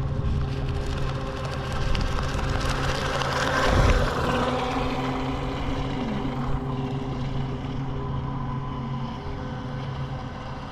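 WLtoys WL915-A RC jet boat's brushless motor and water-jet drive running out on the water as a steady whine over the rush of spray. It is loudest about four seconds in, then slowly fades.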